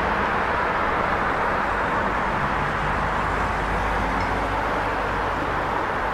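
Busy street traffic: a steady wash of vehicle engine and road noise with no single vehicle standing out.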